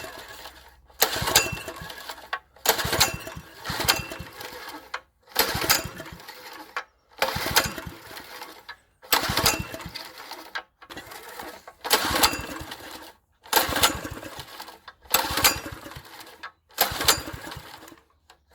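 Honda GX160 single-cylinder engine on a plate compactor being pull-started over and over, about ten pulls in a row, one every second and a half or so, each a short burst of cranking that fades off without the engine running. The engine is not catching, a fuel problem the owner traces to the carburettor's float chamber.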